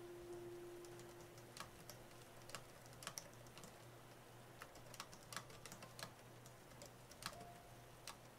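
Typing on an AlphaSmart portable word processor: faint, irregular keystroke clicks, some in quick pairs, with short pauses between them.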